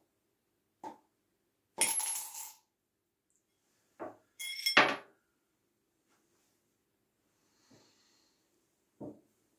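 A coin rattling and clinking against a drinking glass in two short bursts with a ringing tone, about two seconds in and again near the five-second mark. Softer knocks come before, between and near the end.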